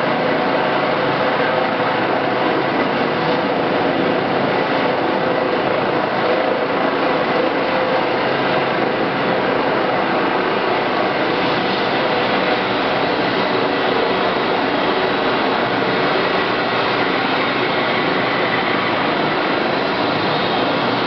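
A helicopter's turbine engines running steadily at ground idle on the helipad after landing: an even rush of noise with a faint steady whine.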